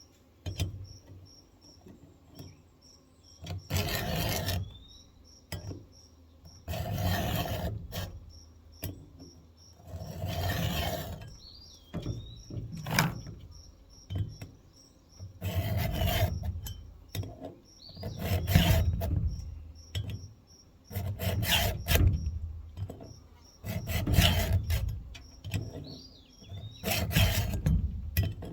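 A hand file rasping across the cutters of an electric chainsaw's chain to sharpen them. It goes in slow, even strokes about a second long, one roughly every three seconds.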